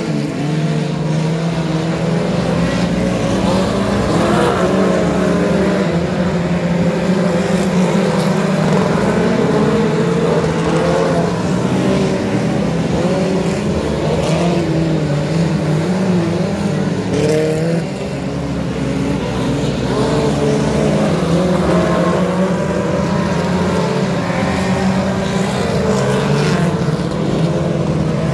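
Ministock dirt-track race cars' four-cylinder engines running around the oval, the pitch rising and falling as cars pass and rev.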